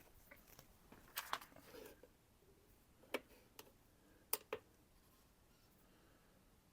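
A few light clicks and taps over near silence: a pair about a second in, one at about three seconds, and another close pair a little after four seconds, from handling a knife on a BESS edge-sharpness tester.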